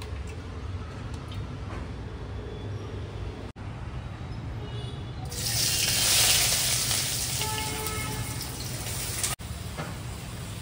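Hot oil sizzling as onions go into the pan: a sudden loud hiss about five seconds in that peaks and then eases off over the next few seconds, over a steady low hum.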